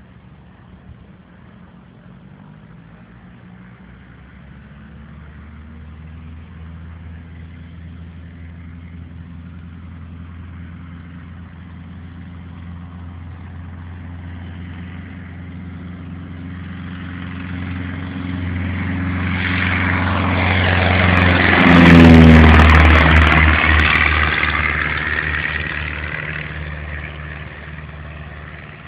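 Citabria light single-engine propeller airplane at takeoff power, its engine growing steadily louder as it approaches, passing closest about three-quarters of the way through with the note dropping in pitch, then fading away.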